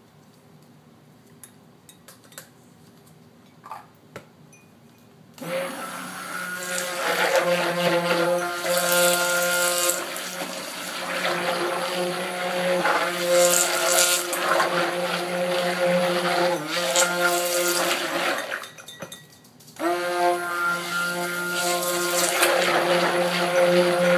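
Immersion stick blender running in soap oils, mixing in colloidal oatmeal and kaolin clay. It starts about five seconds in after a few faint clicks, cuts out briefly about three-quarters of the way through, then runs again.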